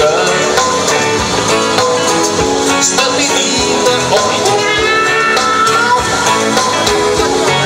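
Live rock band playing loud through the stage PA, heard from within the crowd, with guitars prominent.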